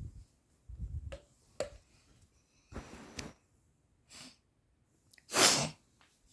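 A person sneezing once, loudly, a little over five seconds in, with a few short, quieter sounds before it. It is played back through loudspeakers as part of a speaker sound test.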